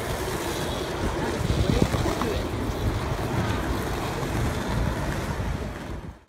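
Wind buffeting the phone's microphone, a steady rushing rumble over outdoor street noise, with faint voices about two seconds in.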